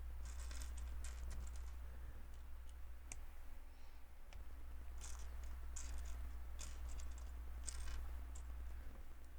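Plastic LEGO bricks and plates clicking and clattering as they are handled and pressed together, in irregular small clicks, over a steady low hum.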